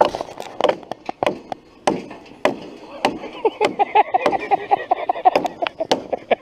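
Hatchet chopping kindling on a wooden log round: a run of sharp, uneven blows that come faster in the second half.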